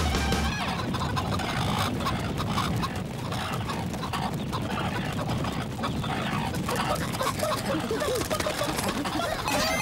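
A flock of cartoon chickens clucking and squawking together in many overlapping calls.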